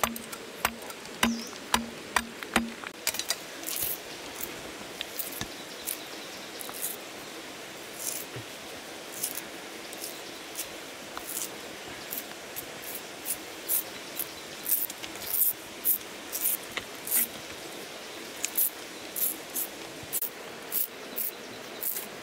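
A machete knocks against a green bamboo stalk a few times. Thin bamboo strips are then split and peeled apart by hand, giving short, sharp high-pitched snaps and rips about once or twice a second.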